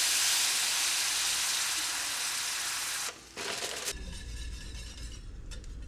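Food sizzling in a hot pan, a steady hiss that cuts off abruptly about three seconds in. A low steady hum follows.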